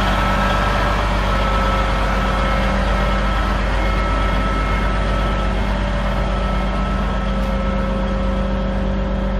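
Large engine of a heavy machine running steadily at an even pitch.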